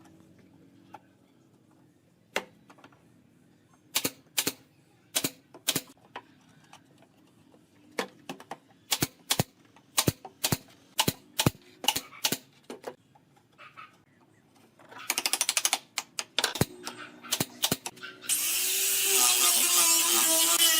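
Workshop tool work on wood: a run of sharp, irregular knocks and taps, with a quick rattling burst about fifteen seconds in. Near the end a power tool starts up and runs steadily at speed.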